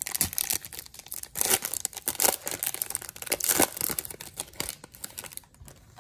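Foil wrapper of a Topps Chrome baseball card pack being torn open and crinkled in quick, sharp rustles that stop near the end.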